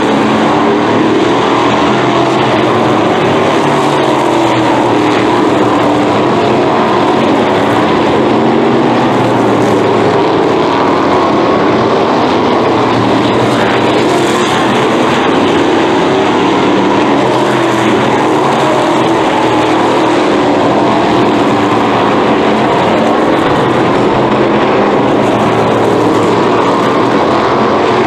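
Several winged sprint cars racing, their V8 engines running together in a loud, steady blend. The engine pitches rise and fall as the cars go through the corners and pass one another.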